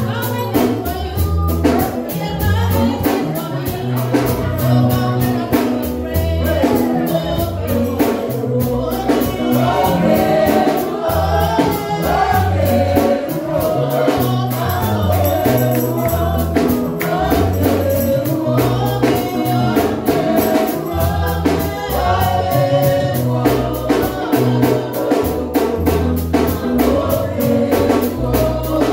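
Gospel praise music: a choir singing over a stepping bass line and a steady drum beat with tambourine.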